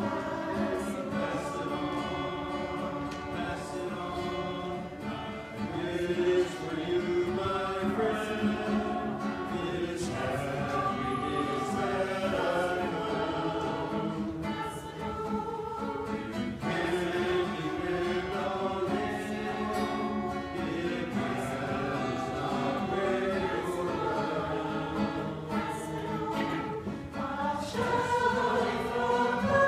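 Choir of men and women singing together, accompanied by an acoustic guitar.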